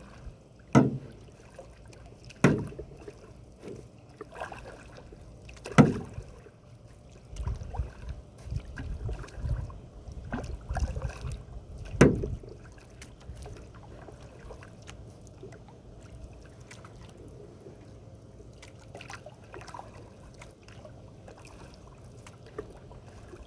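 Canoe being paddled: water swishing and trickling from the paddle strokes, with a few sharp knocks spread through it.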